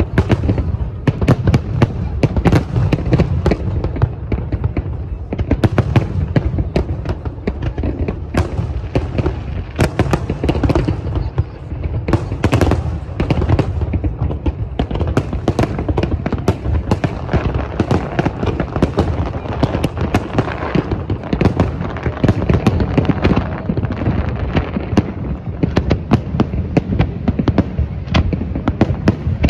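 Large fireworks display: aerial shells bursting in rapid, overlapping succession, a continuous mix of bangs and crackles over a low rumble with no break.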